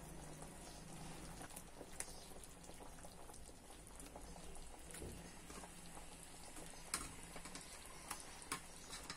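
Fish curry gravy simmering and bubbling gently in a clay pot, with a few faint clicks as pieces of ribbon fish are set into it.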